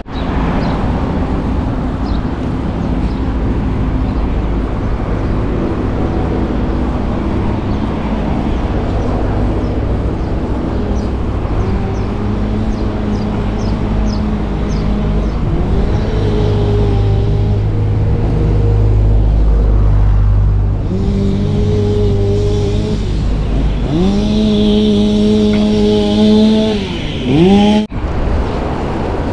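Wind rushing over a chest-mounted action camera's microphone on a moving bicycle, a steady low rumble. In the second half a motor vehicle's engine note rises, holds and falls several times.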